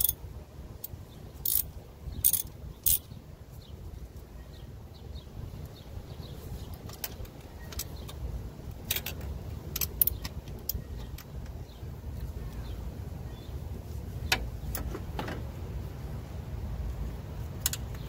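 Scattered sharp metallic clinks and clicks of a spark plug socket, extension and ratchet being handled and worked in the plug wells, heard about eight times over a steady low background rumble.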